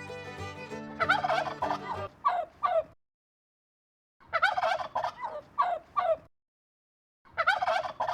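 Male turkey gobbling: three rapid, rattling gobbles, each ending in two or three short clipped notes, separated by stretches of silence. Background music with sustained notes stops about two seconds in.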